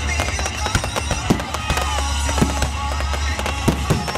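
Fireworks display: shells bursting one after another in irregular sharp bangs and crackles, with music playing underneath.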